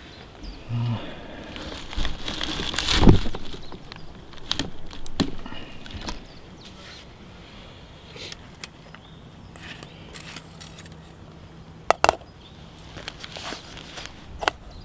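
Camping cookware being handled: rustling, clinks and a few sharp metal knocks, the loudest about three seconds in and another about twelve seconds in, as a metal cooking pot is set onto a small gas canister stove.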